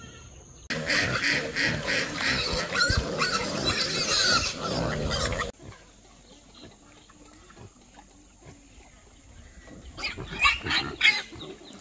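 Many pigs squealing at once, loud for about five seconds and then cut off abruptly; after a quieter stretch, a few sharp squeals come again near the end.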